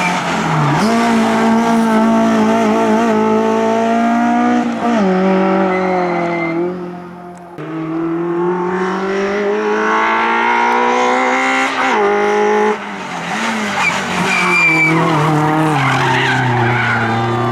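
Peugeot 106 rally car's engine driven hard on a stage: the revs climb through each gear and drop at every gear change, with a short lift off the throttle about seven seconds in. The tyres squeal in the corners near the end.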